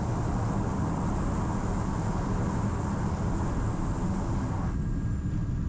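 Steady engine and airflow drone inside the cabin of a small plane in flight, heavy in low rumble. Near the end, the brighter middle part of the noise drops away suddenly, leaving a deeper rumble.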